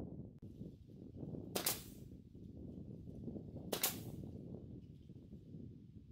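Nail gun firing twice, about two seconds apart: two sharp shots driving galvanized nails at an angle through a wooden porch top rail.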